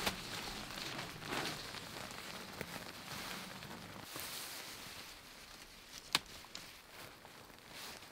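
Nylon tent fabric and ground sheet rustling and crinkling as they are unrolled, spread on the ground and handled while the tent is pitched. A few sharp clicks, the loudest about six seconds in.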